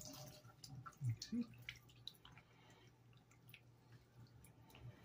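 Water dripping and trickling into a bathroom sink from a wet kitten held over it during rinsing: faint, scattered small drips and splashes.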